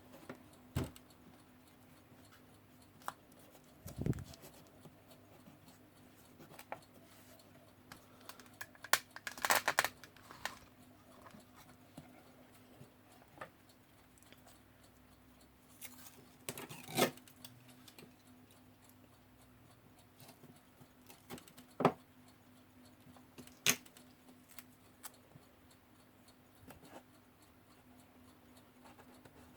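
Sparse, quiet handling sounds of tape being cut and pressed onto the corners of an alarm clock's glass: scattered small clicks and rustles, a short cluster of them about a third of the way in, over a faint steady hum.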